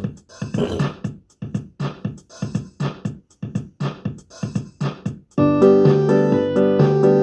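Electronic keyboard playing a drum-machine beat of short, evenly spaced hits, joined about five seconds in by louder sustained electric-piano chords.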